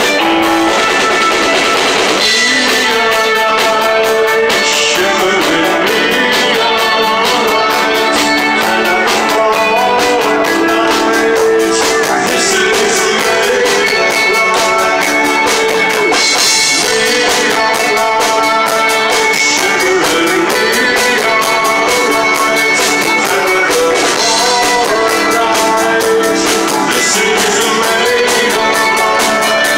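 A rock band playing live: electric guitars over bass and a drum kit, loud and unbroken.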